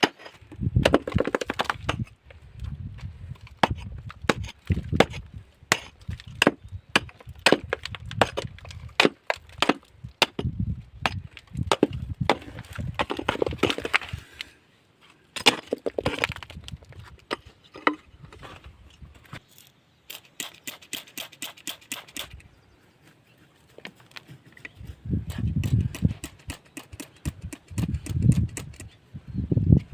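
Rock being struck and broken while searching volcanic stone for gemstones: a long series of sharp cracks, clicks and knocks. There is a quick run of clicks about twenty seconds in, and heavier low thuds near the end.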